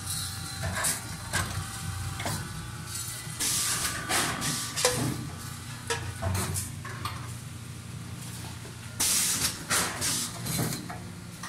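Dolzan D150 vertical form-fill-seal packaging machine running: a steady low hum under irregular short hisses of air, with the longest and loudest hiss in the second half.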